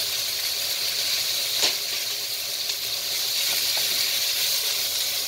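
Sliced onion and carrot sizzling steadily in hot oil in a nonstick wok while being stirred, with a single sharp knock about one and a half seconds in and a few faint clicks later.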